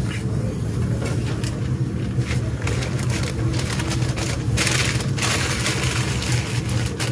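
Deli sandwich paper crinkling and rustling as a sub is wrapped in it by hand, busiest in the second half. A steady low hum sits underneath.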